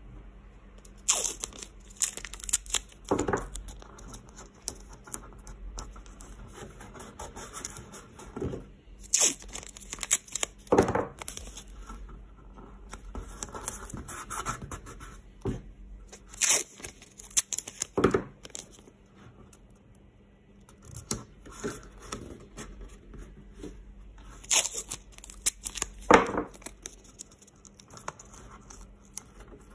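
Masking tape being pulled off the roll, torn and pressed onto a clear plastic turntable dust cover: irregular crackling rips every second or few, with quieter handling between.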